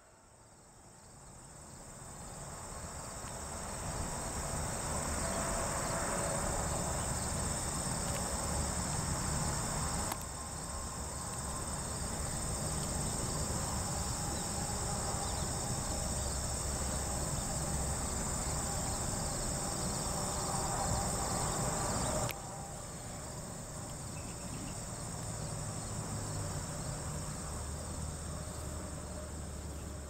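Insects chirring steadily in a steady high-pitched drone, over a low rumble. It fades in over the first few seconds and drops abruptly in level twice, about ten and twenty-two seconds in.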